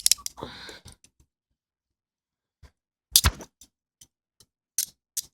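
Metal handcuffs being closed on a wrist: separate sharp clicks of the ratchet, a loud one about three seconds in and then fainter single clicks about every half second as the cuff is pushed tighter.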